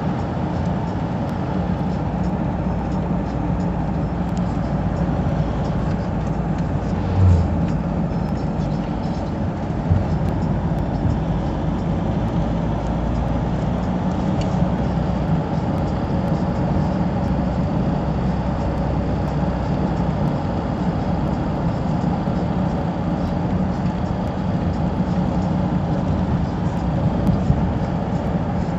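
A car driving at a steady speed, heard from inside the cabin as a steady low hum of engine and road noise. A brief low thump comes about seven seconds in, and a smaller knock about three seconds later.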